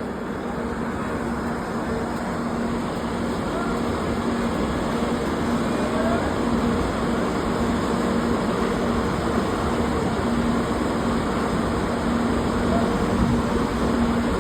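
Express passenger train running through the station, its coaches rolling past with a steady rumble of wheels on rail.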